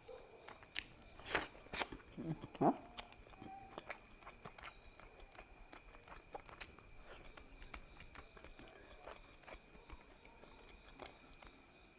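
Close-up chewing and mouth sounds of someone eating: soft smacks and clicks, loudest in a cluster about one to three seconds in, then quieter, steady chewing.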